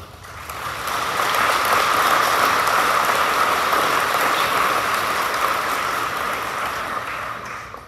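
Audience applauding, building up within the first second and dying away near the end.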